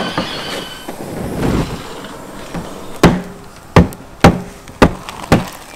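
Baked salt crust over a whole salmon being knocked open with a wooden-handled tool: five sharp knocks about half a second apart in the second half, the crust cracking.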